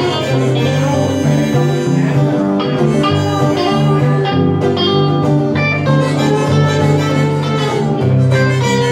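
Live band playing: a harmonica played into a microphone over electric and acoustic guitars, with steady low bass notes underneath.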